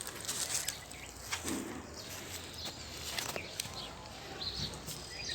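Outdoor ambience with a few short bird chirps and scattered clicks and rustles.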